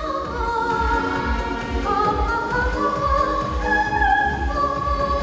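Music: a high voice sings long, held notes over a backing track with a low pulsing beat.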